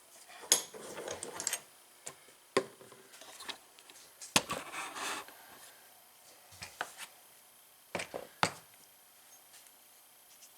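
Scattered clicks and knocks from tools and parts being handled, with sharp knocks about half a second in, near two and a half seconds, around four and a half seconds and twice at about eight seconds.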